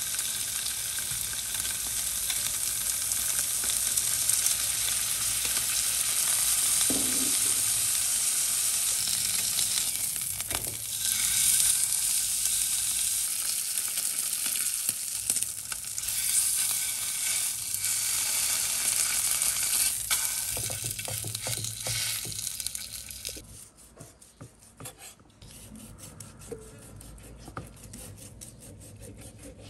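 A piece of pork sizzling and frying in its own rendered fat in a non-stick wok, with tongs scraping as it is turned. About 23 seconds in the sizzle gives way to a quieter stretch of scattered knocks as a cleaver slices the cooked pork on a wooden chopping board.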